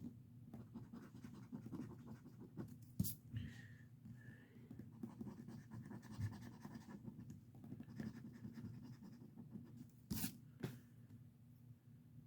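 Faint scratching of a scratch-off lottery ticket, the latex coating being rubbed off in short strokes, with two sharper scrapes about three seconds in and near ten seconds.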